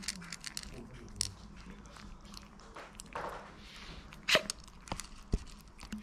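Maltese puppies crunching dry kibble, a run of quick, irregular crisp clicks as they chew and pick pieces off the plate, with one louder click about four seconds in.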